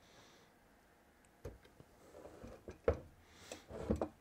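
Screwdriver and carburetor parts being handled on a wooden workbench: a few scattered light knocks and clicks, the loudest about three seconds in and a small cluster near the end.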